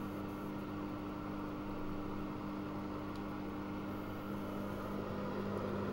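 Microwave oven running at 700 watts: a steady hum with a constant low drone under an even rushing noise.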